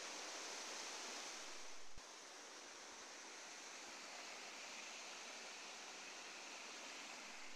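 Steady rush of a muddy, rain-swollen monsoon stream pouring over flat rocks and small cascades, with a brief click about two seconds in.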